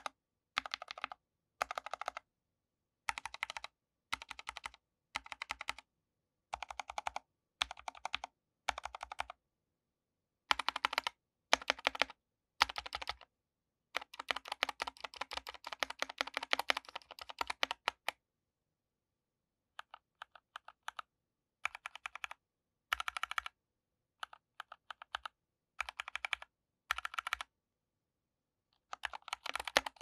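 Mechanical keyboard with Kailh Box Red linear switches being typed on: short bursts of keystrokes with brief pauses, and a longer run of fast, continuous typing about halfway through.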